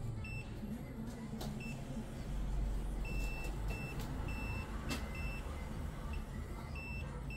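Multimeter continuity tester beeping: a series of short, high beeps at irregular intervals, a few held for a fraction of a second, as the probes make and break contact. Each beep signals a closed circuit between the ground points being probed. A few light clicks of the probe tips come in between.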